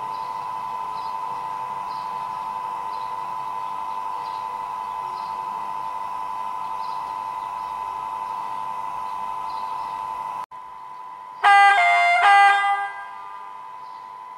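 ZIMO sound decoder in an HO-scale CFR EA 060 electric locomotive model, playing through the model's small speaker. A steady electric locomotive hum stops suddenly about ten seconds in, and shortly after a horn blast of about a second and a half sounds, stepping between two pitches; the horn is the loudest sound.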